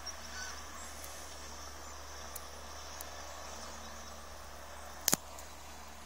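Gulls calling faintly from the flock following the plough, over a steady low background noise. A single sharp knock sounds about five seconds in.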